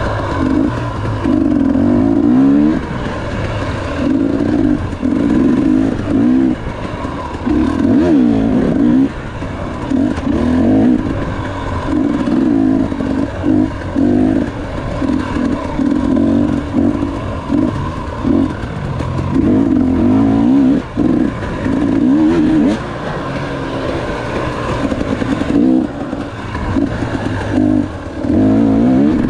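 KTM 250 XC-W two-stroke dirt bike engine revving up and dropping back in repeated bursts of a second or two as the throttle is worked on and off.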